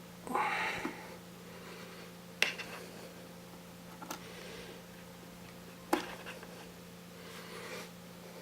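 Small hard parts being handled while a computer is taken apart: first a short scrape, then two sharp clicks about three and a half seconds apart with a lighter tap between them, over a faint steady hum.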